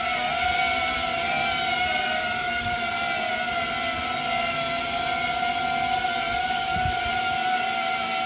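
A small DJI drone's propellers and motors whining steadily in flight, several steady tones that waver slightly in pitch over a hiss of rushing air.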